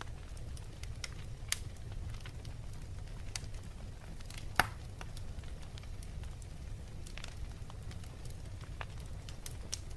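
Wood fire crackling in a fireplace: scattered pops and snaps over a low steady rumble, with one sharp, louder pop about halfway through.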